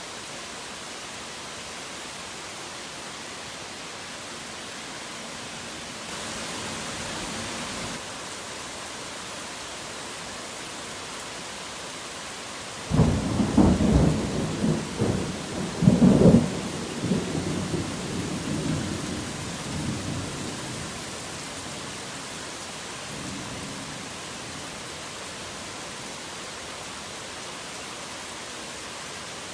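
Steady heavy rain hiss, with a thunderclap a little before halfway through: a cluster of sharp cracks over about three seconds, then rumbling that dies away over the next few seconds.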